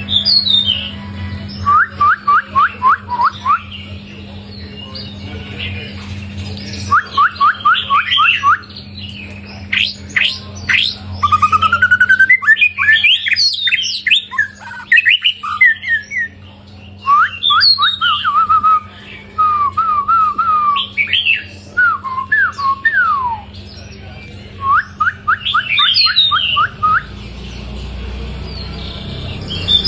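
White-rumped shama singing loudly: runs of quick repeated notes alternating with varied whistled phrases, over a steady low hum.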